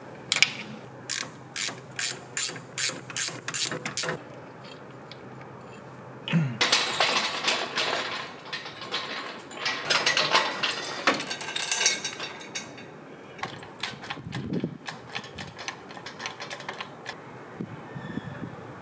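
Ratchet spanner clicking in about nine even strokes, a little over two a second, on the gearbox bellhousing bolts. Then several seconds of jangling chain and metal clatter from the engine crane's lifting chain and hook, followed by scattered light metal clicks and knocks.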